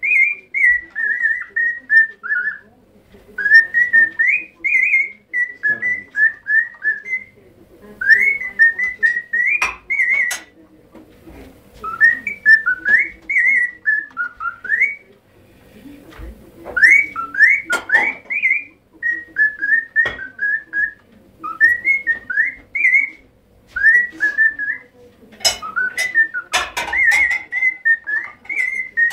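Pet parrot whistling a melody in phrases of quick, short notes, with brief pauses between the phrases and a few sharp clicks.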